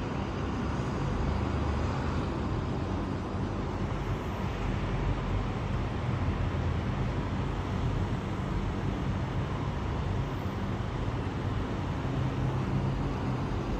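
Sandstorm wind blowing steadily, with a low rumble on the microphone.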